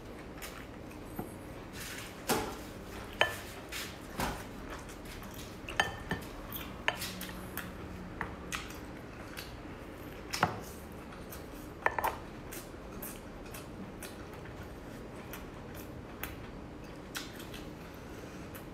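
Eating a cooked lobster: its shell cracks and clicks as it is bitten and sucked at. The clicks are irregular and sharp, and come most often in the first twelve seconds.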